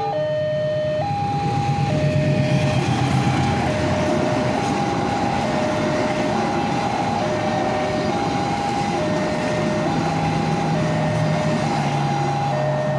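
Electronic level-crossing alarm sounding a slow two-tone ding-dong, switching between a higher and a lower tone about once a second, over the rumble of a passenger train's coaches rolling past on the rails. The train noise is loudest a couple of seconds in, and a low hum comes up in the second half.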